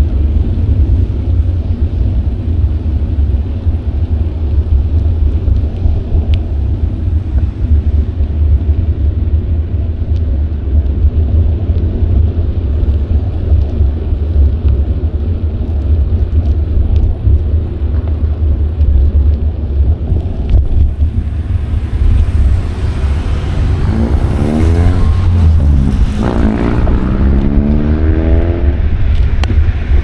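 Steady low wind rumble on the microphone of an action camera on a moving bicycle. In the last third a motor vehicle passes, its engine rising in pitch twice as it accelerates.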